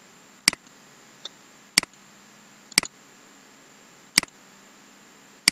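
Computer mouse button clicking: single sharp clicks, about five of them, spaced roughly a second apart at an uneven pace.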